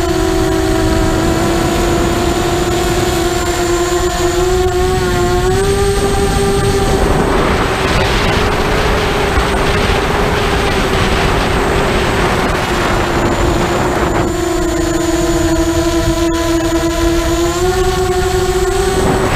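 Brushless motors and propellers of a 180-size FPV mini quadcopter whining steadily, heard through its onboard camera, with the pitch stepping up slightly as the throttle changes. For several seconds in the middle the whine gives way to a rushing noise, then comes back and rises again near the end.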